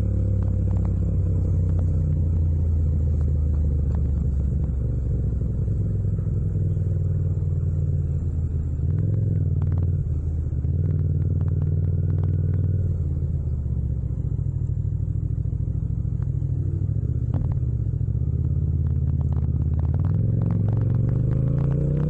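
Yamaha MT-07's 689 cc parallel-twin engine running at steady, low revs under way, with a few light clicks. Near the end the revs start to climb as it accelerates.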